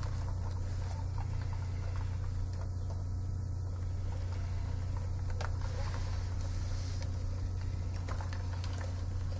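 A steady low hum, with faint scattered clicks and whirs from a NAO humanoid robot's joint motors as it rises to standing and begins to sit down again.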